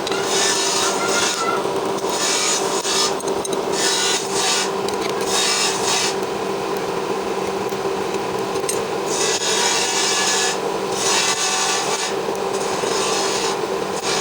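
Metalworking noise: harsh rasping in irregular spells of half a second to two seconds, over a steady machine hum.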